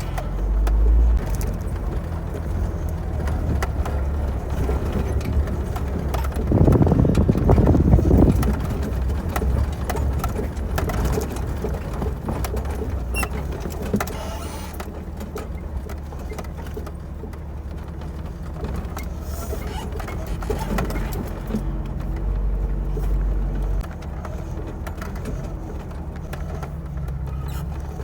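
1987 Toyota 4Runner driving: steady engine and road rumble, which grows heavier and louder for about two seconds roughly a quarter of the way in.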